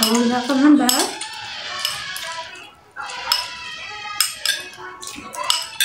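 Metal spoons clinking and scraping against a glass bowl and a plate as two people eat quickly, in many short, irregular clicks. A brief voice-like sound comes in the first second.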